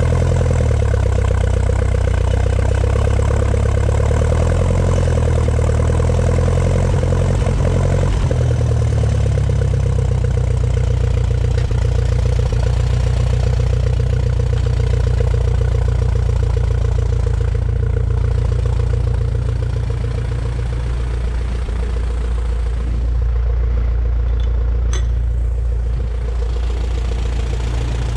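The four-cylinder petrol engine of a 1950 Ferguson TED20 tractor runs steadily as it drives, then settles to a slightly quieter idle about two-thirds of the way in.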